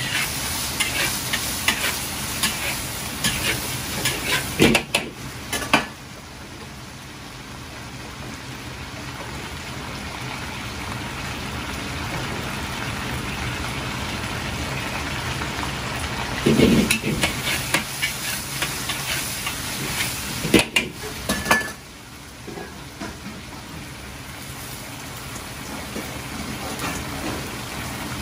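Fried chicken sizzling as it is stir-fried in a carbon-steel wok over a high gas flame, a steady hiss throughout. It is broken by spells of a metal ladle clattering and scraping against the wok, in the first few seconds and twice more past the middle.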